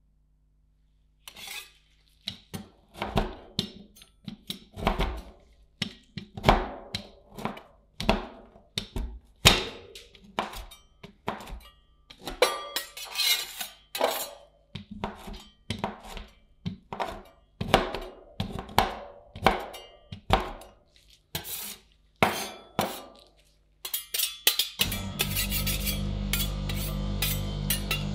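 Metal spatulas striking an ice cream pan's cold metal plate in uneven knocks and clinks, one or two a second, as ingredients are chopped and worked on it. Near the end a steady hum starts.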